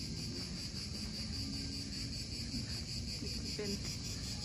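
Steady insect chorus, a high, evenly pulsing trill, over a low rumble.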